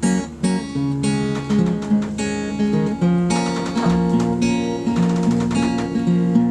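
Acoustic guitar being played solo: a continuous run of notes and changing chords, with no singing.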